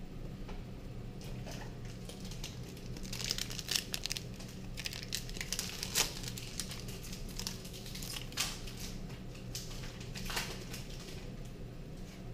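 Foil Pokémon booster pack wrappers crinkling and tearing as packs are opened by hand, in irregular bursts that are busiest in the middle, over a steady low hum.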